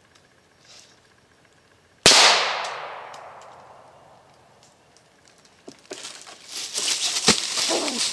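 A single gunshot about two seconds in, ringing out and fading over about two seconds. From about six seconds a loud scuffling noise builds up.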